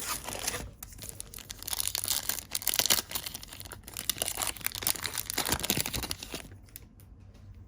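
Foil wrapper of a trading card pack being torn open and crinkled, dying down to faint handling near the end.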